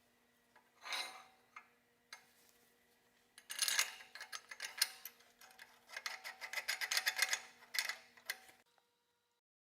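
Irregular scraping and tapping of a hand tool on metal, thick and fast through the middle and then cut off abruptly near the end, over a faint steady hum.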